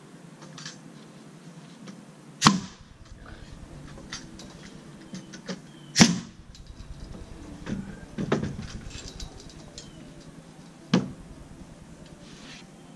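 Pneumatic nail gun firing three single shots a few seconds apart, driving nails into wooden fence pickets, with a few lighter knocks from handling the boards in between.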